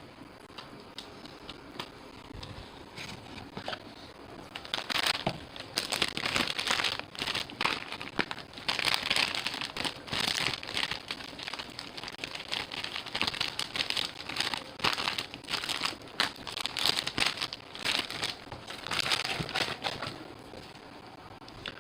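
Plastic wrapping on trading-card packaging crinkling and tearing as it is opened, in irregular bursts starting about four seconds in and stopping shortly before the end.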